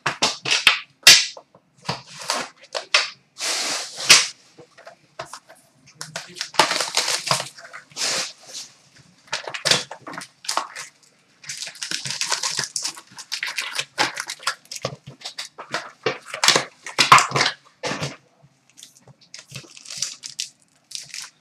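Trading-card box and pack wrappers being handled, torn open and crumpled: irregular bursts of crinkling and ripping, with a few sharp clicks.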